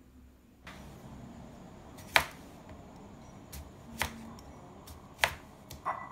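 Kitchen knife slicing a green vegetable into rounds on a wooden cutting board. There are a few sharp chops, roughly one every second or so, and the loudest comes about two seconds in.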